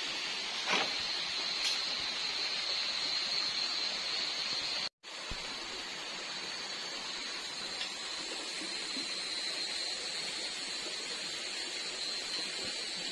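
Night rainforest ambience: a steady rush of rain under a continuous high-pitched drone of night insects. The sound cuts out for a split second about five seconds in.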